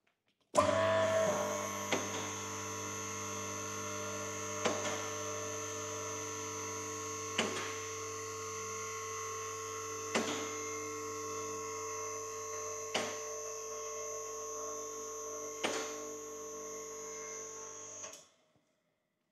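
Two-post car lift raising a car: its electric hydraulic pump motor starts with a steady hum and whine, and the safety latches click six times, about every two and a half seconds, as the carriages pass each lock position. The motor cuts off sharply near the end.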